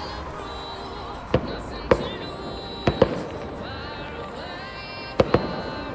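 Fireworks bursting: about six sharp bangs, some in quick pairs, over steady outdoor background noise.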